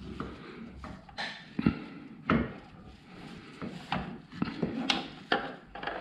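Gloved hands fitting and turning an oil filter cover into its housing on a motorcycle engine: a string of irregular small clicks and knocks with rubbing of nitrile gloves against the parts, the sharpest knocks a little under two seconds in and again just over two seconds in.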